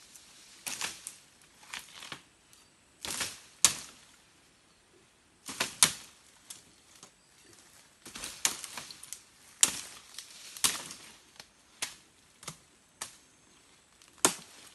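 Machete chopping through palm stems and brush: a string of sharp, irregular strikes, often in quick pairs, with short pauses between.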